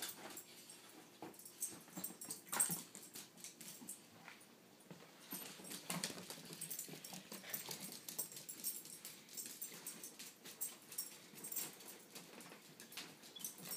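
Italian greyhounds moving about and playing, with scattered scuffling and sharp clicks of claws and paws on the couch and floor.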